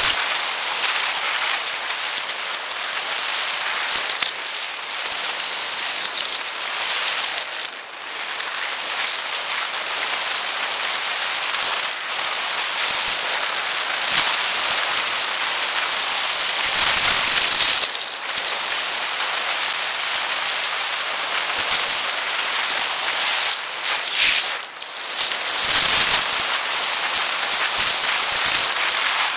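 Fast-forwarded ride audio: wind buffeting and road rattle on a moving, mounted camera, sped up into a dense hiss and crackle. It surges louder about halfway through and again near the end.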